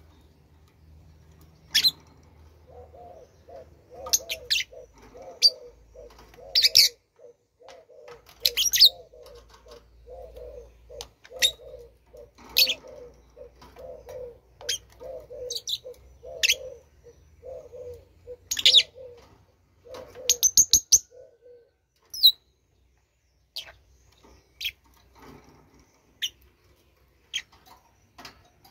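Bird calls: sharp, high chirps over a long run of low, rapidly repeated notes that stops about three quarters of the way through.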